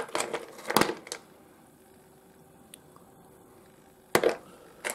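Lumps of rough seam opal knocking and scraping against each other as they are handled, in a few short clattering bursts in the first second and again about four seconds in, with only faint room sound between.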